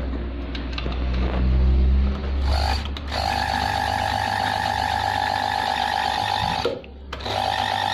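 Toyota 6602 sewing machine running on its newly fitted drive belts in a test run, a low steady motor hum for the first two seconds or so. About two and a half seconds in, a steady high tone takes over, breaks off briefly near the end and then returns.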